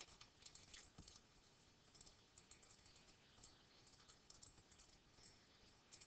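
Near silence with faint, scattered clicking of computer keyboards and mice as students work at their computers.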